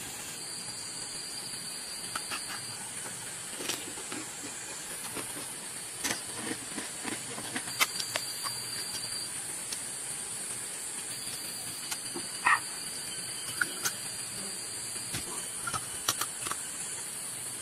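Cooked crab shells cracking and snapping as they are picked apart by hand, in scattered sharp clicks, the loudest about 8 and 12 seconds in. Under them runs a steady high-pitched hiss of forest insects.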